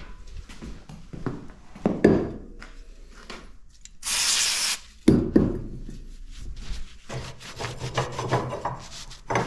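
Hand tools scraping and knocking on metal, likely work on the exhaust flange's stud threads. About four seconds in comes a hiss lasting under a second, then a sharp knock.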